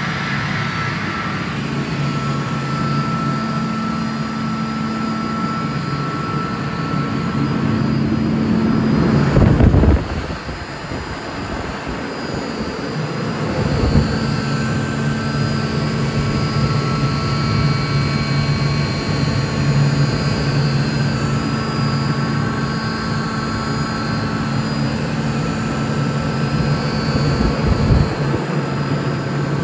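Atlas Copco GA 11 FF direct-drive screw air compressor running loaded, its 11 kW electric motor and screw air end humming steadily with a higher whine as it builds pressure in the air tank. A few loud surges of noise come about a third of the way in, again shortly after, and near the end.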